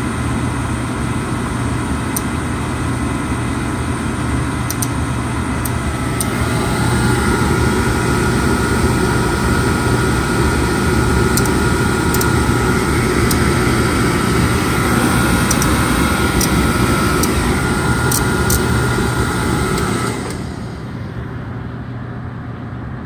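Oil furnace burner running with a steady hum, joined about six seconds in by a louder, steady whine, with faint, irregular clicks from the electrical box on its side. Near the end the whine cuts off and the sound drops sharply, leaving a quieter hum: the burner cutting out, the fault of a burner that won't stay lit.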